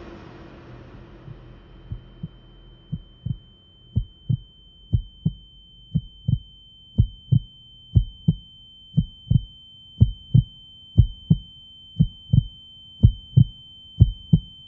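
Heartbeat sound effect: a slow, steady lub-dub about once a second, growing louder over the first few seconds, under a steady high-pitched ringing tone.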